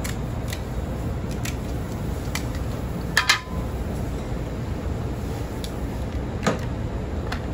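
Clinks and light knocks of metal platters and utensils as cooked king crab is handled. The loudest is a quick double clink with a short ring about three seconds in, and another knock comes about six and a half seconds in, over a steady low rumble.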